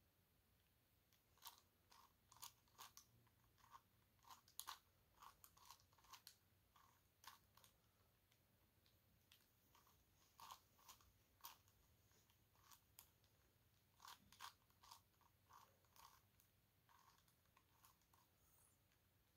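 Plastic pieces of a 5x5 dodecahedron twisty puzzle (a Gigaminx) clicking and clacking faintly as its layers are turned by hand, in short runs of irregular clicks with brief pauses between them.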